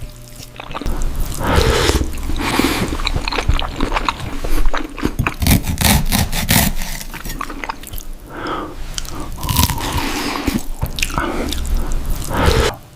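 A person eating roast pork close to the microphone: loud, irregular crunching bites and chewing.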